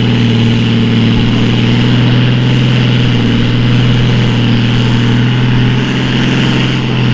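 Turbocharged International Harvester farm tractor's diesel engine running flat out under heavy load as it drags a weight-transfer pulling sled. The engine note holds steady and loud.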